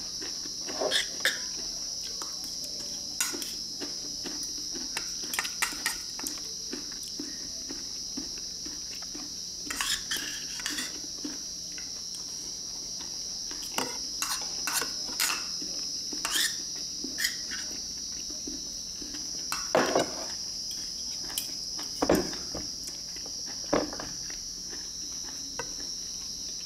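Spoons and forks clinking and scraping against ceramic bowls as two people eat, in short irregular clicks. Behind them runs a steady high-pitched drone of insects.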